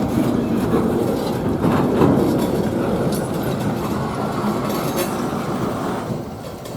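A train rolling past, its wheels rumbling and clicking over the rail joints. The sound fades gradually in the last couple of seconds.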